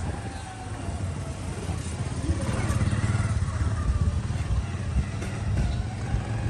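A motorcycle engine idling steadily, a low pulsing rumble, with faint voices in the background.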